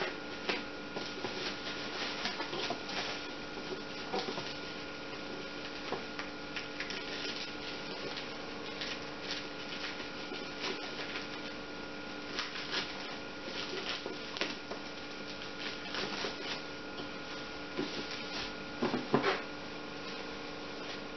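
Small scissors snipping through tape and plastic wrapping on a parcel box, and plastic bubble wrap crinkling and rustling as it is pulled away, with a louder crinkle near the end. A steady electrical hum runs underneath.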